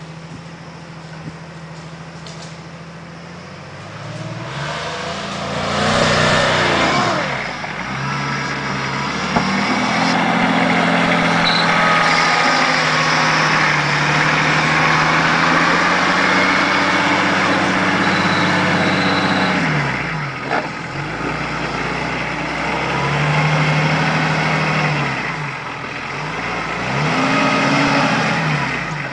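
Nissan Patrol GR 4x4's engine driving off-road, revving up and down repeatedly as it manoeuvres. It is quieter for the first few seconds and gets much louder about five seconds in.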